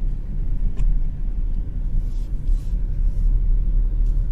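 Low, steady rumble of a car driving: engine and road noise.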